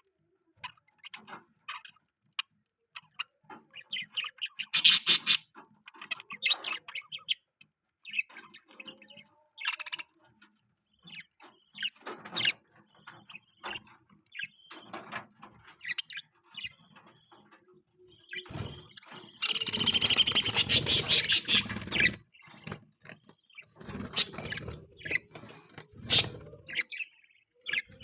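Newborn budgerigar (budgie) chicks chirping in short, scattered calls, with louder runs of calls about five seconds in and again for a couple of seconds around twenty seconds in.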